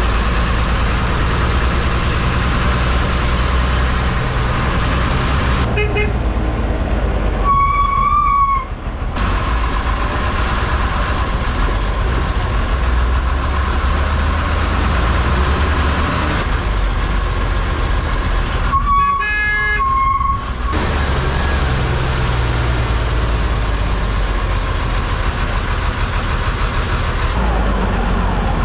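MSRTC bus on the move, its engine and road noise a steady low rumble. A vehicle horn honks twice, about eight seconds in and again about nineteen seconds in.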